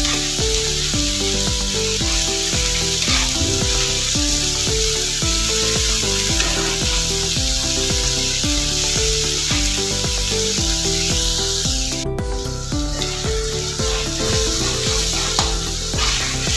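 Fish pieces and masala sizzling steadily on a hot tawa over medium heat, stirred and scraped with a metal spatula as the fish is bhuna-fried. Background music with held notes that change about twice a second plays along.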